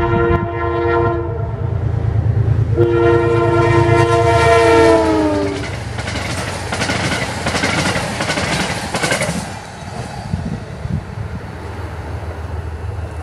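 Amtrak passenger train passing close by: the locomotive's horn sounds a short blast, then a longer one whose pitch drops as the locomotive goes past, over the diesel's rumble. Then the passenger cars' wheels clatter over the rail joints, and the clatter fades as the train moves away.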